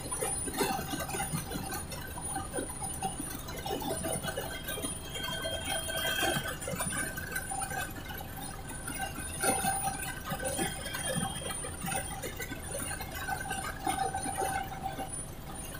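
Helicopter cabin noise in flight: several steady high whining tones over a low rumble, with small scattered rattles.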